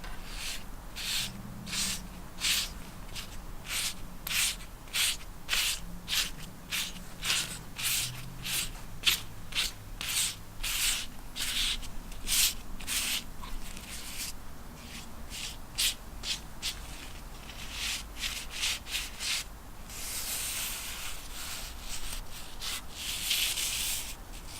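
Sandpaper rubbing back and forth on model rocket fins to finish them, in rhythmic strokes about two a second. Near the end it becomes longer, continuous rubbing.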